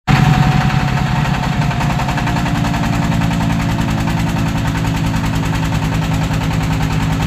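Single-cylinder 'dompeng' diesel engine driving a 7500 W generator, running steadily under a load test with a fast, even knocking beat. A faint high whine sinks slightly in pitch over the first two seconds.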